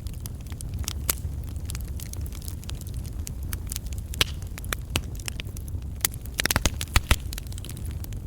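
Campfire of burning logs crackling: a steady low rumble of flame with scattered sharp pops and snaps of wood, a quick flurry of them about six and a half seconds in.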